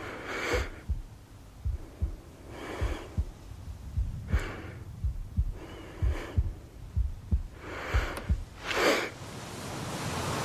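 A person breathing heavily, one loud breath every one and a half to two seconds, over soft low thumps about twice a second.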